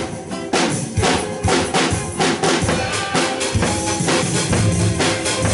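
Acoustic drum kit played in a steady beat, with bass drum, snare and cymbal hits over accompanying melodic music.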